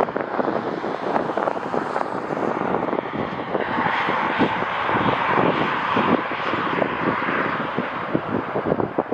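A jet airliner's engines passing, their hiss swelling from about four seconds in and easing off near the end, over strong wind buffeting the microphone.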